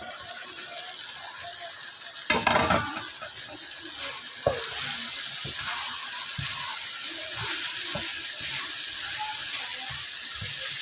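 Chopped ridge gourd (tori) sizzling as it fries in onion-tomato masala, with a steady hiss. A wooden spoon stirs it, knocking and scraping against the pan now and then. There is a brief loud clatter about two seconds in.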